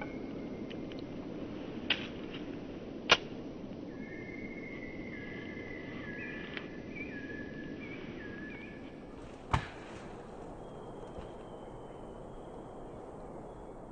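Knife spine struck down a ferrocerium fire-steel rod to light wood shavings: two sharp scrapes, a small one about two seconds in and a louder one about three seconds in, over a soft steady background. Another sharp knock comes near ten seconds.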